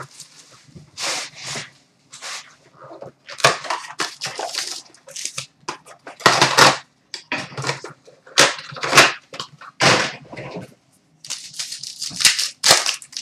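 Hockey card box and foil card packs being handled and opened by hand: irregular crinkling and rustling of wrappers and cardboard, in short rustles about once a second.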